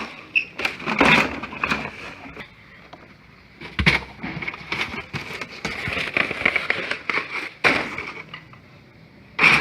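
Irregular knocks, scrapes and clatter of objects being handled and moved, with the loudest thuds about a second in, near four seconds and near eight seconds.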